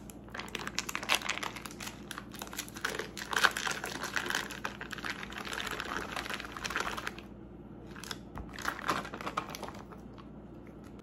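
Foil wrapper of a block of cream cheese crinkling and crackling as it is peeled back and the block is squeezed out into a mixing bowl. Crinkling runs for about seven seconds, then one shorter burst of crackling comes near the end.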